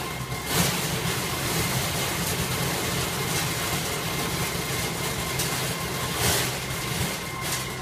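Belt-type bean color sorting machine running: a steady mechanical hum with a constant thin whine and hiss over it. Two brief louder rushes of noise, about half a second in and near six seconds.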